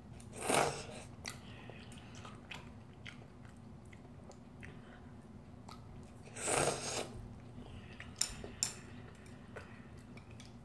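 A child slurping instant ramyeon noodles from chopsticks, two long slurps about half a second in and about six and a half seconds in, with quiet chewing between.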